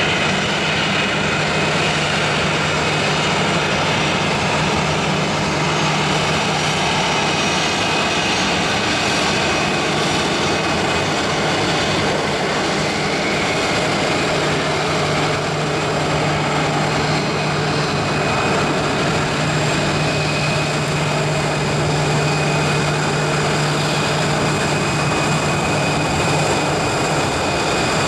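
Airbus A319 jet airliner taxiing with its twin jet engines at low power: a steady engine whine over a rushing hiss, with a low hum underneath.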